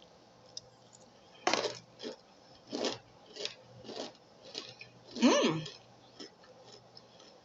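Dry starch being bitten and chewed with a crunch, in separate crisp crunches every half second to a second. A short rising-and-falling hum comes about five seconds in.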